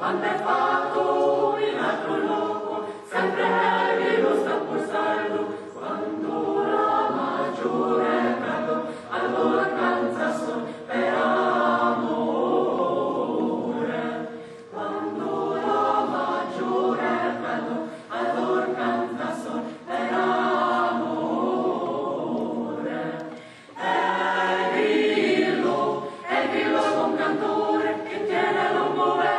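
Mixed choir of women's and men's voices singing a cappella, in phrases with short breaks between them.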